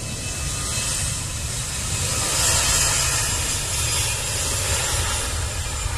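Batik Air Airbus A320's jet engines running as the airliner rolls past close by on the ground: a loud steady rush with a faint whine, swelling to a peak about two to three seconds in.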